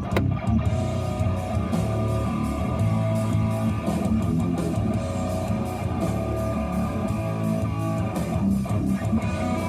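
Music with strummed electric guitar and bass guitar, playing at a steady level.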